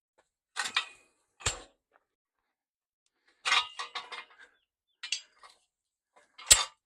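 Metal parts of a builder's scaffold clanking and rattling as it is put together: a handful of separate knocks and short rattles, the sharpest knock near the end.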